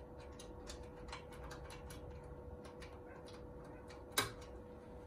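Faint, scattered small clicks and ticks from handling a Handi Quilter Forte longarm quilting machine at its handles, with one sharper click about four seconds in, over a steady faint hum.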